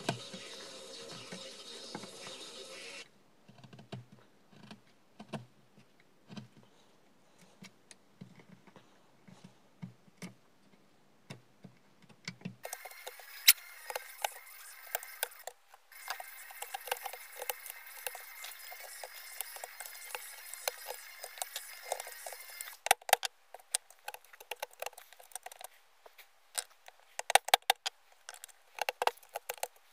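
Chisel paring wood by hand in a dovetail joint: irregular small clicks and scrapes as the blade shaves the wood, sharper and more frequent near the end.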